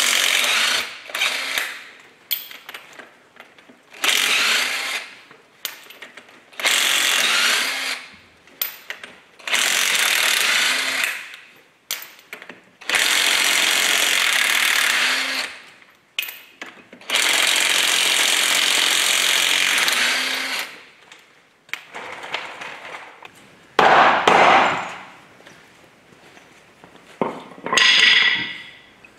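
Cordless impact wrench hammering in repeated bursts of one to three seconds, with short pauses between, as it undoes the wheel nuts on a truck's front wheel. About three-quarters through comes a louder, lower-pitched sound lasting about a second.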